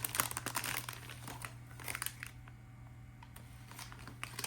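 Plastic packaging crinkling as it is handled and pulled open, densest in the first second and a half, then a few scattered crinkles, over a low steady hum.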